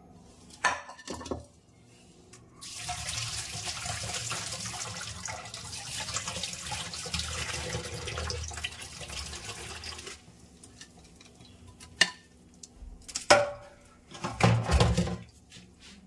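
Kitchen tap running into a sink for about seven seconds, starting nearly three seconds in, with sharp metal clanks of a pan and utensils before it and a cluster of louder clanks and knocks near the end.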